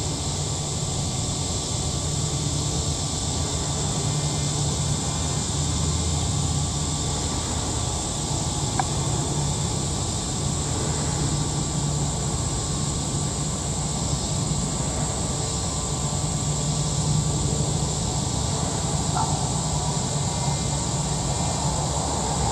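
Steady outdoor background: a continuous low rumble with a high, even insect drone above it, and two faint short chirps far apart.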